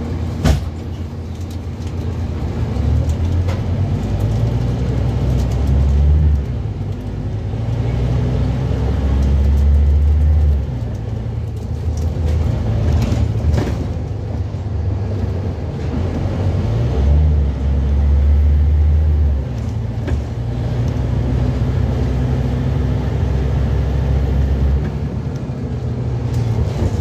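Scania N230UB double-decker bus's five-cylinder diesel engine, heard from inside on the upper deck, pulling hard in several stretches with its note dropping back between them, over tyre and body rattle. A sharp knock comes about half a second in.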